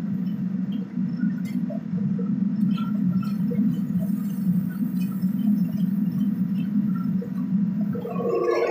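Gas wok burner running with a steady low rumble, with light metal clinks of a ladle and scrubber against the wok. Near the end there is a burst of sizzling as the hot wok is tilted over the flame.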